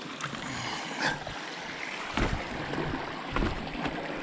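Creek water running, with a few dull thumps and light knocks over it.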